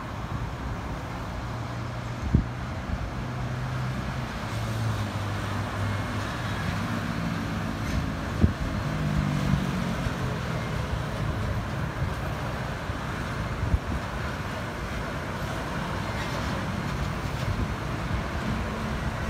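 Steady road-traffic noise with a motor vehicle's engine note rising in steps a few seconds in, and a few short knocks.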